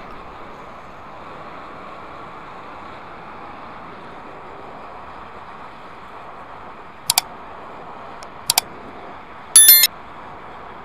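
Oxyacetylene torch flame hissing steadily as it heats a bronze braze on cast iron. Near the end come two sharp mouse clicks and then a bright bell chime from a subscribe-button sound effect; the chime is the loudest sound.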